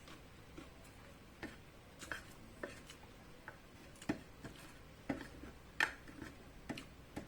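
Close-up chewing of chicharon, deep-fried pork cracklings: a string of short, sharp, crisp crunches at irregular spacing, about two a second.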